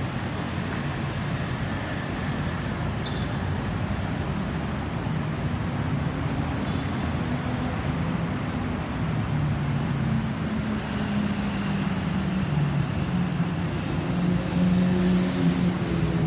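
Road traffic: motor vehicle engines running over a steady rush of road noise, with a low engine hum growing louder near the end.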